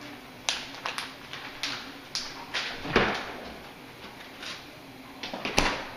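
Kitchen clatter: about ten sharp knocks and clicks at irregular intervals as items are handled or put away, the loudest about three seconds in and another near the end.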